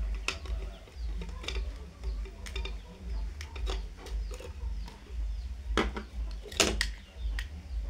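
Small clicks, taps and scrapes of a screwdriver working the terminal screws of a plastic light switch while the switch is handled, with two sharper clicks near the end. A low pulsing rumble runs underneath.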